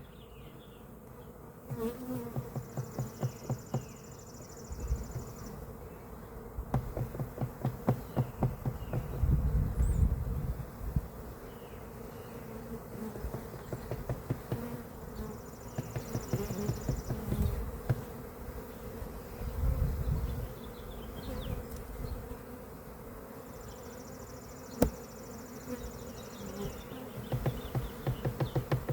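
A mass of Carniolan honey bees buzzing with a steady hum, broken every few seconds by louder stretches of rapid ticking and low rumbles close by.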